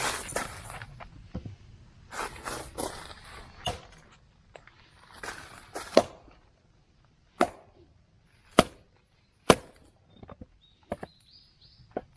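Rustling and scraping handling noise, then a run of sharp knocks or clacks about a second apart, as of something hard being struck or set down.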